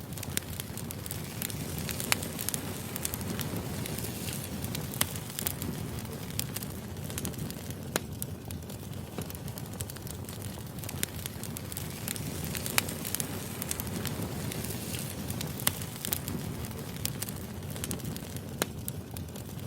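Firewood burning: a steady low rush of flames with constant fine crackling and a few sharp, louder pops every few seconds.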